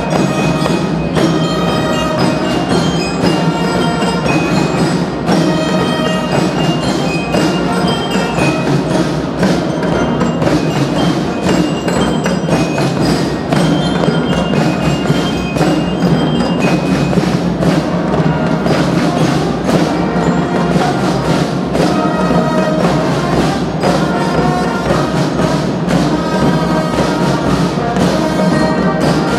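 Youth marching band of drums and brass horns playing a march: drum strokes keeping a steady beat under held horn notes.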